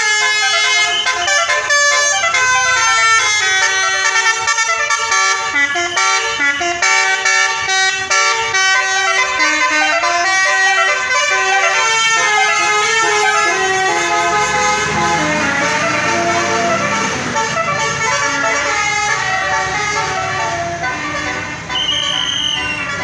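Basuri telolet horn on a Po Hartono tour bus playing a tune of quick, stepping multi-tone notes; in the last third the notes grow weaker under a rougher noise.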